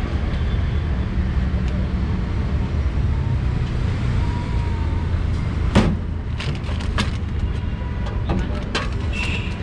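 Steady low rumble of street traffic with faint background voices, and a few sharp clicks and knocks, the loudest about six seconds in.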